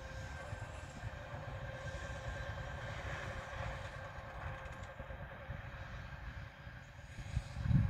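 2TE116 two-section diesel locomotive running light and pulling away: a low diesel rumble under a steady high whistle, the turbocharger whistle behind its 'Boeing' nickname. A louder low buffeting sound rises near the end.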